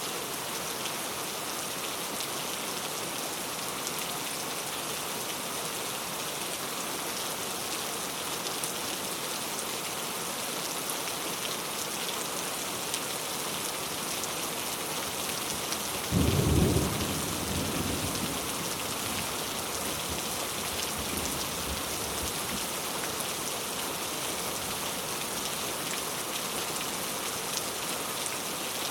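Steady rain falling on a surface, an even hiss throughout. About sixteen seconds in, a clap of thunder breaks in loudly and rumbles away over a few seconds.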